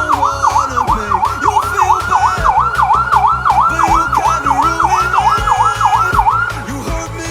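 Electronic police-escort siren sounding through its horn speaker in a fast yelp mode, its tone sweeping up and down about three times a second, then stopping near the end. Background music with a steady beat plays underneath.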